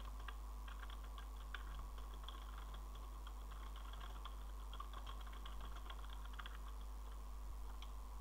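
Faint computer-keyboard typing: a quick run of key clicks for about six and a half seconds, then a pause and one more keystroke near the end.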